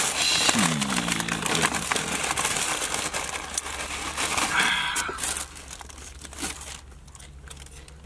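Plastic takeout bag crinkling and rustling as hands dig through it. The rustling dies down about five and a half seconds in.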